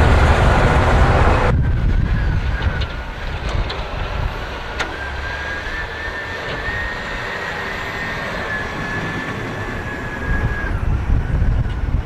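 City vehicle noise with wind rumbling on the microphone in a snowstorm, and a steady high whine through most of it. The sound drops abruptly about a second and a half in, as at a cut.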